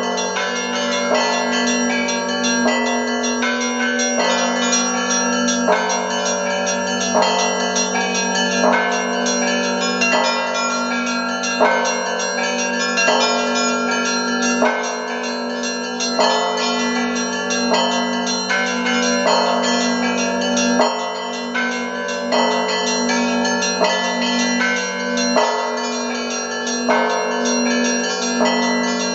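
Russian church bells rung by hand (zvon): deep bells hum steadily underneath while smaller bells are struck over and over in a regular rhythm, with a stroke about every second.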